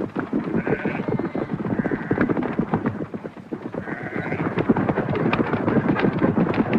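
Several horses galloping, a fast, continuous clatter of hooves. Sheep bleat a few times over it.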